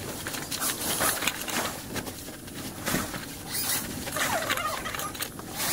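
A folding wagon's 600D fabric liner rustling and scraping in irregular bursts as it is pulled and worked over the folded steel frame.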